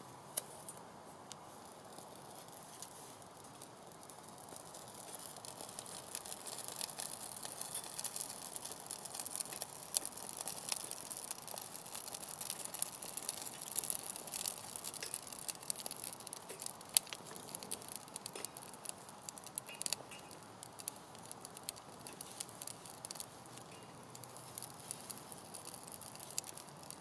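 Small fire of birch bark and cotton wool catching and crackling: many sharp pops and snaps over a hiss that builds from a few seconds in.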